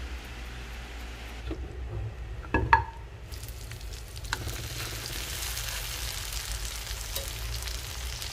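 Seasoned chicken breast fillet frying in melted butter in a nonstick pan, with a steady sizzle and small crackles from about three seconds in, after a short knock.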